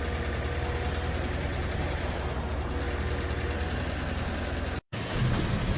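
An engine running steadily with a low rumble. Near the end it breaks off abruptly and a different low rumble takes over.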